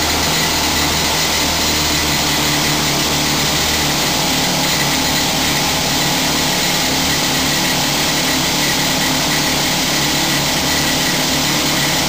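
Pneumatic rock drill on a support stand drilling into a rock face, running loud and steady without a break.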